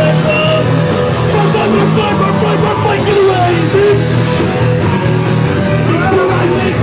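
Live rock band playing loud, with electric guitars and a sung lead vocal over the full band.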